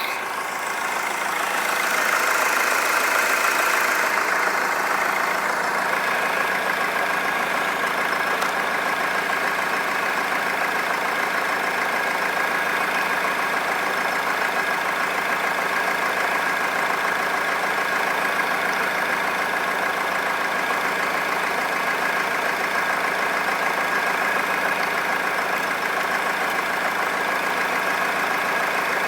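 Honda Accord 2.2 i-CTDi four-cylinder common-rail turbodiesel running steadily at idle, with the engine noise the uploader puts down to leaking injectors.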